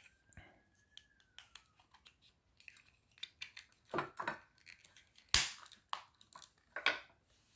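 Small plastic clicks and scrapes from handling the black plastic case of a touch lamp's control module, a knife blade working against it. The sharpest click comes about five and a half seconds in.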